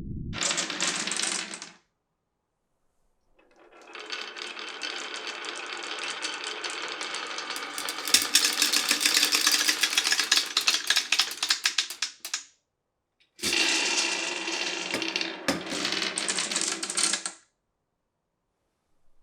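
Glass marbles rolling and clattering along a wooden marble run, in three stretches that start and stop abruptly. In the long middle stretch the rolling turns into a dense, rapid clatter of clicks about halfway through.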